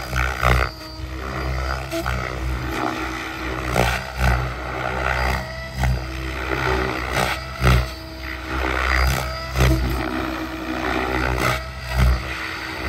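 Tron 7.0-class RC helicopter flying 3D aerobatics: steady motor and gear whine under the rotor blades' whoosh, which swells into loud surges about every second or two as the blades load up through flips and pitch changes.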